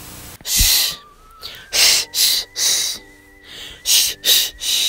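A brief hiss of TV static, then a run of about seven loud breathy 'shh' shushing sounds, some close together in pairs and threes.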